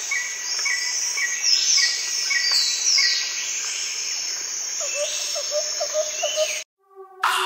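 Jungle ambience: a steady high insect buzz under bird chirps about twice a second and falling whistled calls, with a run of lower calls near the end. It cuts off abruptly, and electronic music starts just after.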